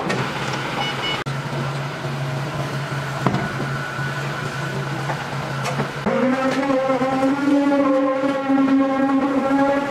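Forklift engine running at a steady low idle, then revving up about six seconds in and holding a higher, steady pitch while the forklift carries a load.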